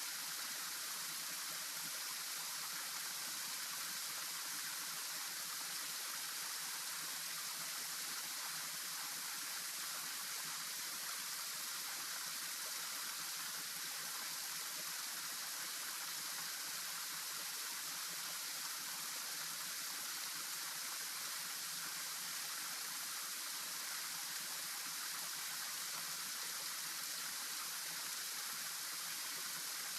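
Steady rushing of flowing river water, an even, unchanging noise.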